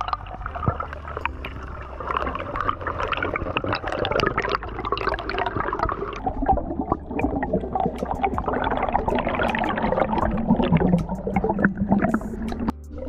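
Gurgling, bubbling water noise heard through an underwater camera housing, with many small clicks over a steady low hum.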